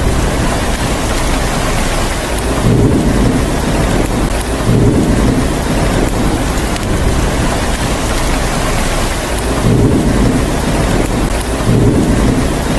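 Steady heavy rain hissing, with low rumbles of thunder swelling up four times.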